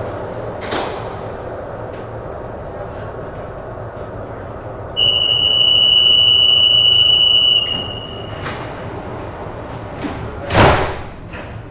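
Inside a Santiago Metro Line 6 car stopped at a station: a steady high-pitched warning tone sounds for about two and a half seconds, the door-closing signal, over the low hum of the train. Near the end comes a loud thump, typical of the doors shutting.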